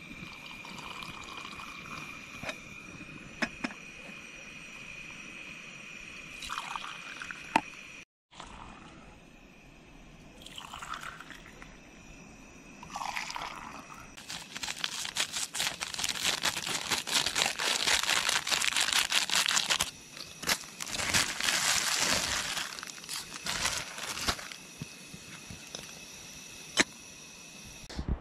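Hot coffee poured from a steel tumbler into a mug and back, in several pours. The longest runs for about six seconds in the second half, followed by another of about three seconds.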